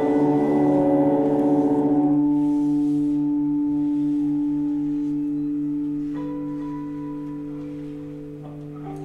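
Experimental improvised guitar drone: held, ringing guitar tones stacked into a chord that slowly fades, the low note wavering in a steady pulse. A few new higher tones come in about six seconds in.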